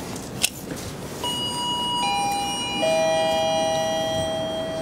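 A click, then an elevator arrival chime: three descending bell-like notes struck a little under a second apart, each ringing on under the next.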